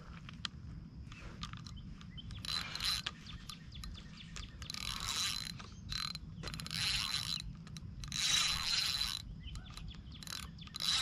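Spinning reel cranked in short spurts while a hooked carp is on the line: about five bursts of whirring gear noise, each with a thin high whine.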